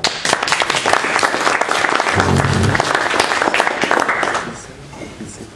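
Audience applauding, starting at once and fading out after about four and a half seconds.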